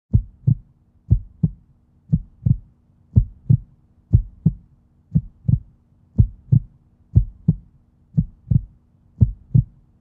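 Heartbeat sound effect: a steady lub-dub double thump about once a second, ten beats in all, over a faint low hum.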